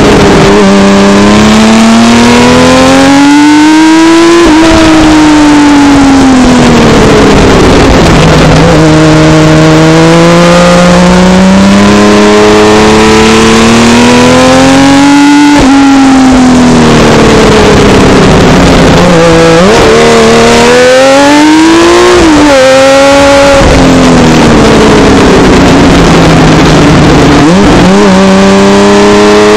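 Honda CBX motorcycle engine running hard on the open road, its pitch climbing under throttle and falling away again several times as the rider accelerates and rolls off through the bends, with sharp breaks in the note at the gear changes or throttle closures.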